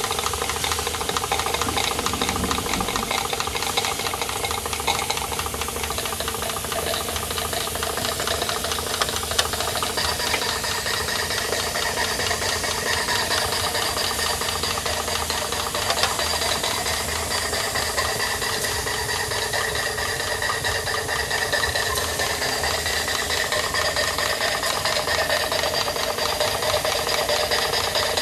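Märklin 16051 model steam engine running fast, its exhaust chuffing rapidly and evenly through an OzSteamDemon chuff pot.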